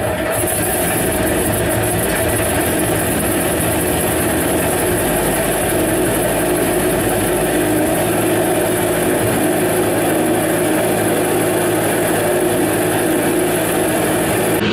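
Wright R-1820 Cyclone nine-cylinder radial aircraft engine running steadily at a constant pitch.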